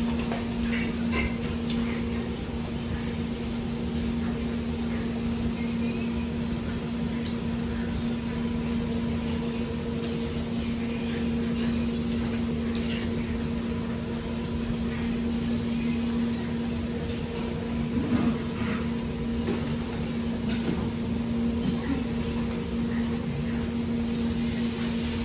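A steady mechanical hum at one pitch, with a few light clicks and scuffs as the dogs move about on the hard floor.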